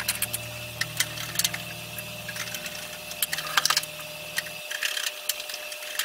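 Scattered clicks and light knocks of a microwave oven's sheet-metal case and parts being handled and fitted back together, over low steady background tones that stop about four and a half seconds in.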